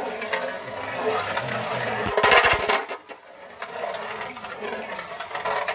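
Two homemade spinning tops spinning on a metal tray, rattling and scraping against the metal. A louder burst of rapid clattering comes about two seconds in and lasts under a second.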